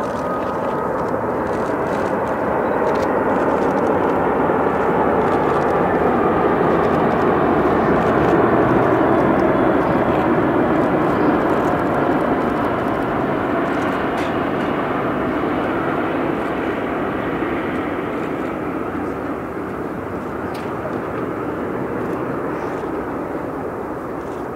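Jet noise from an Airbus A380-841's four Rolls-Royce Trent 900 turbofans at low approach thrust as the aircraft flies past on final approach. It builds to its loudest about eight to ten seconds in, then slowly fades, with a faint high whine at the start.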